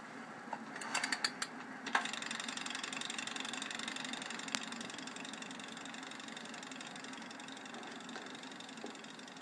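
Wind-up mechanical kitchen timer: a few sharp clicks as its dial is turned about a second in, then steady fast ticking that slowly fades.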